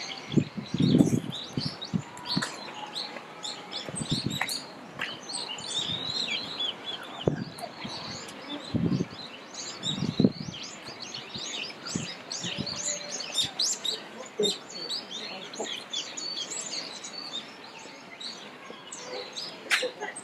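Many small birds chirping and twittering busily, short high calls overlapping one another. A few low thumps break in, the loudest about a second in.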